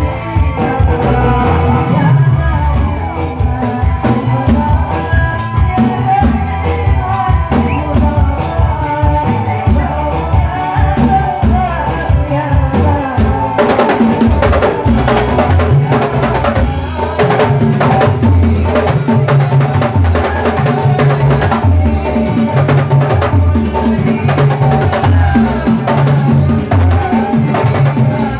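Hadrah music: a row of hand-played rebana frame drums beats a steady interlocking rhythm under a sung vocal line. From about halfway, sharper, more frequent slaps on the drumheads come in.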